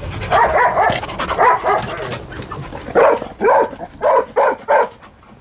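Dogs barking: a cluster of short yelping barks in the first two seconds, then five sharp barks in quick succession.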